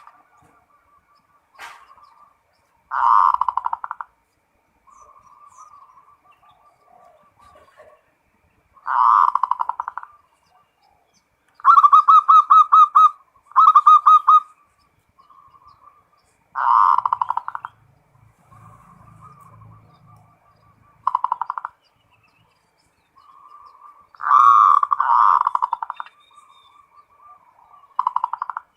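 Zebra dove (perkutut) cooing: loud, rapidly pulsed coo phrases about a second long come every few seconds, with softer cooing between them.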